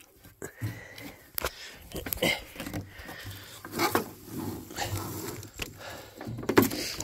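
Rope being untied and pulled free from a wooden dock board: rustling with scattered sharp knocks on the wood, about five over a few seconds.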